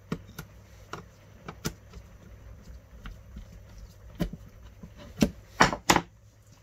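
Scattered light clicks and taps of wires and a screwdriver being worked on a plastic fuse-box terminal block while a terminal screw is tightened, with two louder knocks close together near the end.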